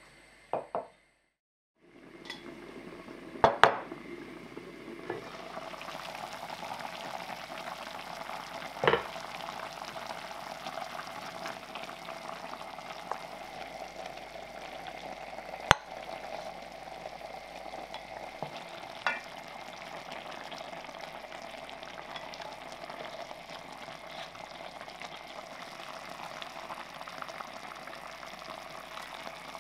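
Beef broth with vegetables bubbling at a steady simmer in an enamelled cast-iron braiser. A couple of loud metal clanks come a few seconds in as the lid comes off. Later there are a few sharp clinks of metal tongs against the pot and a glass bowl as the beef ribs are lifted out.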